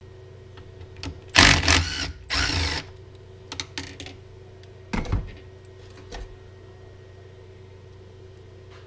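Cordless drill whirring in two short runs on the clamp screws of a mill-vise fixture. Then light metal clicks and a knock as the machined parts are handled in the fixture.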